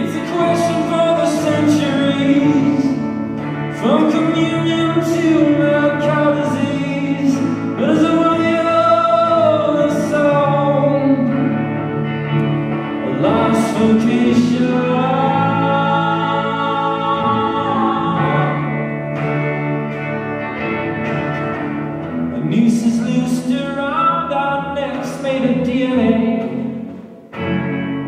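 A man singing long, sliding phrases over a band's steady held accompaniment, played live in a reverberant church sanctuary.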